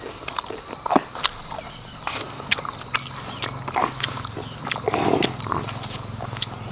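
Close-up wet chewing and lip smacking while eating ripe jackfruit, with irregular sharp clicks as the sticky flesh is pulled apart by hand. A short, louder noise comes about five seconds in.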